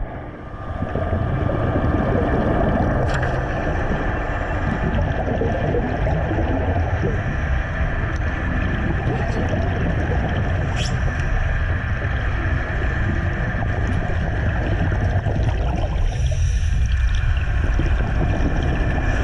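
Underwater sea-life sound effect: a steady low rumble with a constant hum above it and a few sharp clicks. It cuts in and out abruptly.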